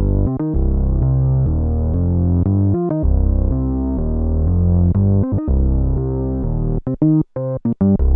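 Korg Polysix analog synthesizer playing a bass patch: a line of low notes with a dark, filtered tone, with a few short, clipped notes near the end.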